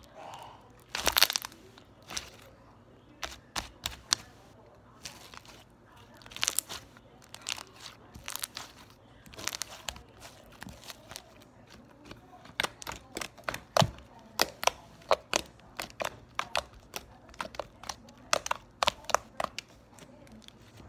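Thick white slime being kneaded, pressed and stretched by hand, giving a string of sharp clicks and pops that come faster near the end.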